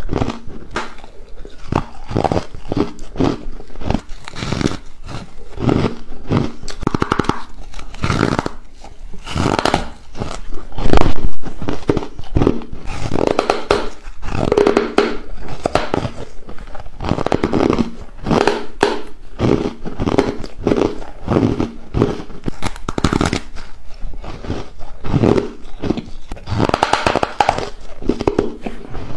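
Close-miked biting and chewing of ice coated in matcha powder: dense crunching and crackling, with an especially loud bite about eleven seconds in.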